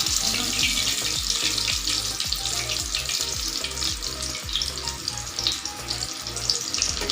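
Masala-coated fish frying in hot oil in a pan: a steady sizzle with many small crackles, easing slightly toward the end.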